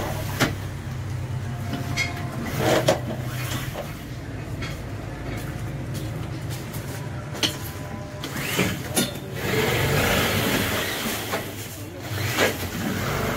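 Pleated blackout curtain being slid open and closed along its track, with sharp handling clicks and a longer rustling slide about ten seconds in, over a steady low rumble of strong wind.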